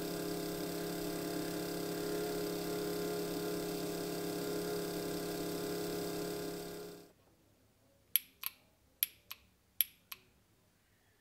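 An electric motor, most likely the bench fuel pump pressurizing the K-Jetronic system, hums steadily and stops about seven seconds in. Then the cold start valve's solenoid clicks in three quick pairs as 12 volts is switched to it and off, showing that the valve works.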